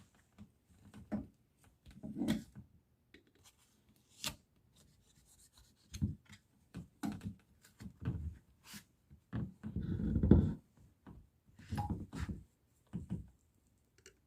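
Caulk being cut and a baseboard pried from the wall: a utility knife scraping along the caulk line and a pry tool levering. It comes as short, irregular scrapes and knocks, the loudest about ten seconds in.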